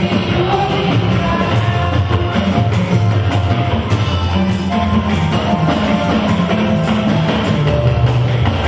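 Loud, continuous band music with a heavy bass line and drums, with voices singing over it.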